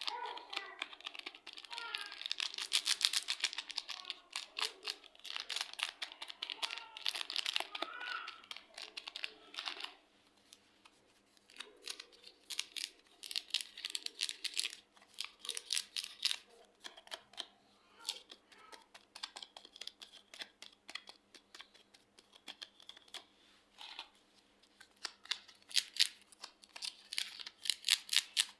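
Clear slime mixed with soft clay being worked by hand, giving crackling clicks and small pops: a dense run for about ten seconds, then sparser clicks.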